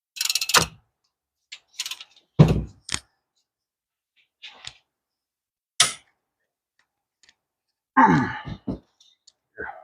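Sporadic metal clanks and knocks from hand tools working on the hub assembly bolts: a sharp click, a heavy thud about two and a half seconds in, another sharp click, then a quick cluster of clanks with a brief ring about eight seconds in.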